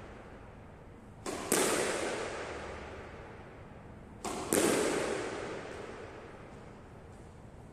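Squash ball being driven twice, about three seconds apart: each time a racket strike is followed a quarter second later by a louder smack of the ball against the wall. Both ring out in the court's long echo.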